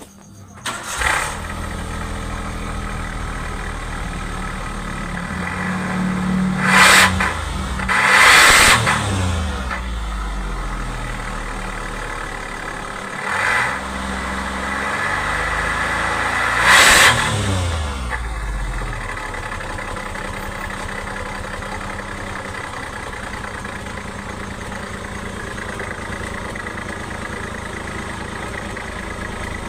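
Engine running through an aftermarket exhaust tuned for a deep 'ngorok' (snoring) rumble. It comes in about a second in, is blipped up in revs four times, then settles to a steady idle.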